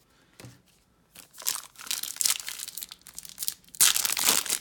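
Foil wrapper of a Topps Chrome baseball card pack being torn open and crinkled by hand. The crackling starts about a second in and is loudest near the end.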